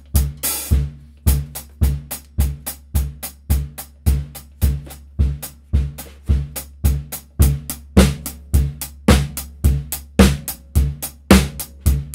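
Acoustic drum kit played to a steady beat: bass drum and snare strokes, about three a second, with a cymbal wash ringing near the start.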